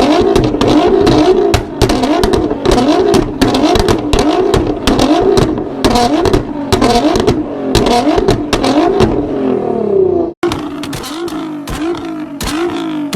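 Tuned turbocharged car engine revved over and over in quick blips, its pitch rising and falling, with sharp cracks and pops from the exhaust. About 10 s in it cuts abruptly to another engine blipping faster and a little quieter.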